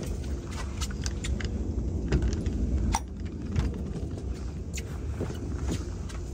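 A boat's motor running with a steady low rumble and hum, with scattered small clicks and ticks over it.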